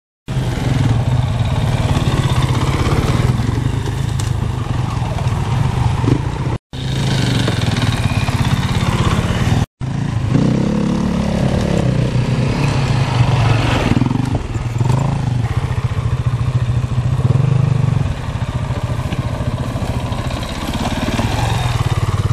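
Enduro motorcycle engine running hard and revving up and down as the bike climbs a steep, rocky hill trail. The sound drops out twice, briefly.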